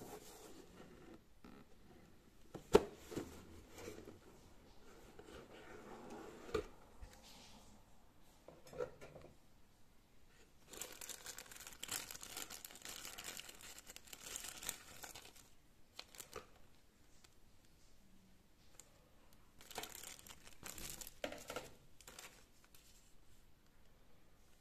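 Cardboard model-kit box being handled and opened, with a few sharp knocks in the first several seconds, the loudest about three seconds in. Then the clear plastic bags around the kit's parts sprues crinkle, for about four seconds near the middle and again for a couple of seconds later on.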